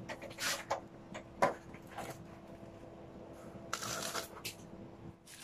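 Hands pressing and scraping potting soil around a sunflower seedling in a clay pot: scattered crumbly rustles and scrapes, busiest about four seconds in, over a faint steady hum.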